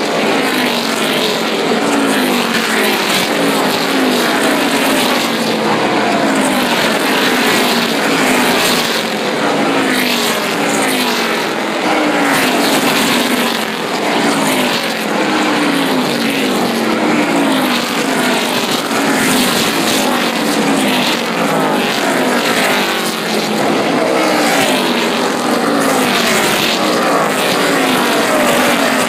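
NASCAR stock cars' V8 engines racing past in a steady stream. One car after another goes by, each engine note falling in pitch as it passes, with no let-up.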